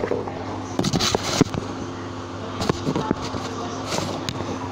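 Scattered knocks and crackles from a head of cabbage being handled on a cutting board close to the microphone, over a steady low hum.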